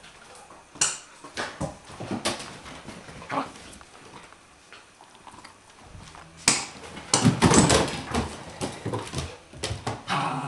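Dogs playing and scuffling over a toy ball on a wooden floor: scattered knocks at first, then a louder stretch of scuffling and dog noises from about two-thirds of the way through.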